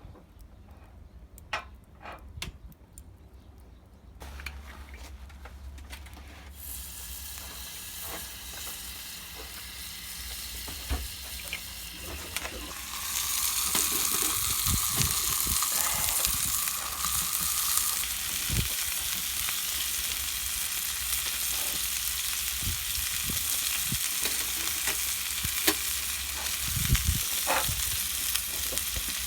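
Steak sizzling on a grill over a wood fire pit: a few clicks at first, then a hiss that builds and turns into a loud, steady sizzle partway through, with occasional knocks.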